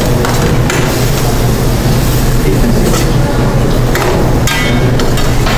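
A utensil scraping and knocking against a sauté pan as a thick tomato and cheese sauce is stirred, with a cluster of clinks about four and a half seconds in. A loud, steady low hum runs underneath.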